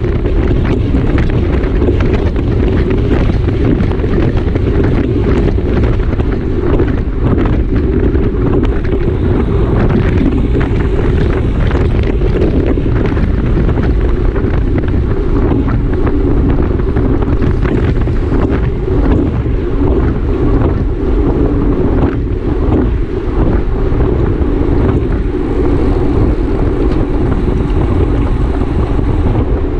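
Loud, steady wind buffeting the microphone of a camera on a racing bicycle at speed, a dense low rumble with small knocks and rattles throughout.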